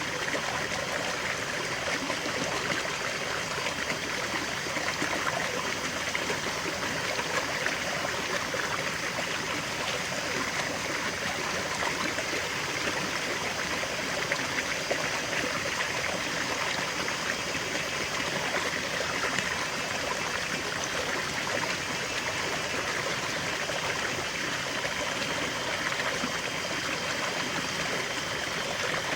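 River water flowing steadily over stones, a continuous rushing and babbling with fine trickling detail.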